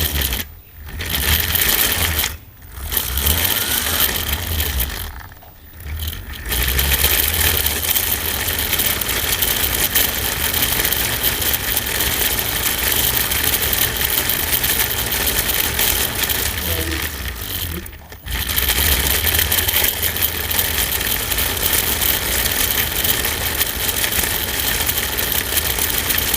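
Toy RC rock crawler's small electric motor and gearbox whirring as it drives. It stops briefly three times in the first six seconds and once more about 18 seconds in, then runs on steadily.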